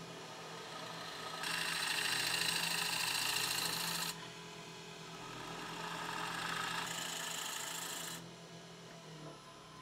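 Wood lathe running with a steady hum while the spinning sycamore is worked, giving two stretches of loud hissing scraping: the first about a second and a half in, the second around seven seconds in. The hum drops out near the end.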